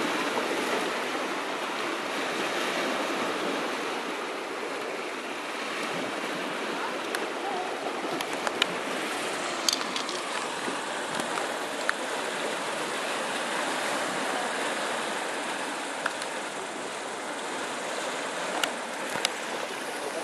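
Small sea waves washing steadily on the shore, with a few short sharp clicks about halfway through and near the end.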